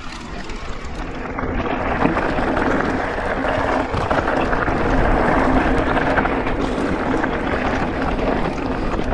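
Wind rushing over the microphone and tyre noise from an electric mountain bike on a dirt track, a steady rush that grows louder about two seconds in.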